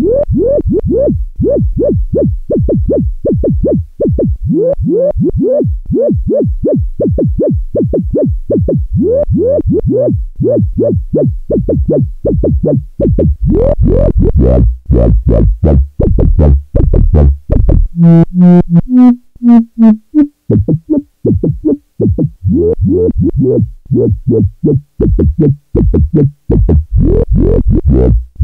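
Studio Electronics 4075 Eurorack filter on a sawtooth synth sequence: a fast, even run of short notes, several a second, whose brightness and resonance shift as the filter's knobs are turned by hand. About halfway through the sound opens up brighter, then for a couple of seconds it thins to a few sparse, ringing resonant tones before the busy pattern returns and brightens again near the end.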